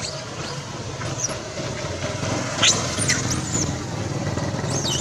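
Macaques squealing: a cluster of high, sweeping shrieks about halfway through and another near the end, over a steady low hum.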